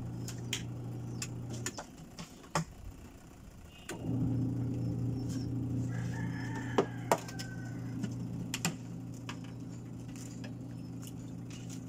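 Sharp clicks of a spoon and a boiled egg's shell tapping against a ceramic bowl, over a steady low motor hum that drops out for a couple of seconds and then comes back. A rooster crows in the background.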